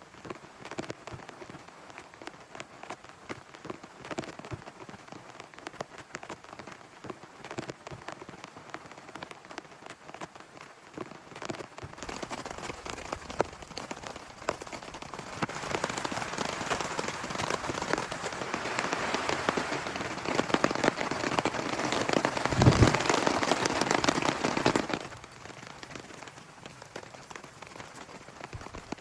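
Rain falling, with many separate drops ticking. About halfway through it grows into a heavier, louder downpour. A few seconds before the end it eases back abruptly to lighter drops, with one low thud just before.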